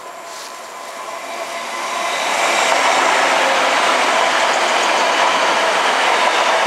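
TransPennine Express diesel multiple unit running past close along the platform. Its engine and wheel noise grows over the first couple of seconds into a steady, loud rush.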